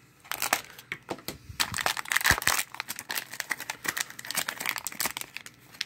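Foil blind-bag packet crinkling in irregular crackles as hands tear it open and pull it apart, starting a moment in.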